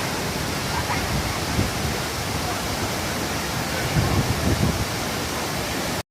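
Waterfall: a steady rush of falling water, cutting off suddenly just before the end.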